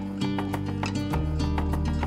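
Background music with a steady beat and sustained bass notes.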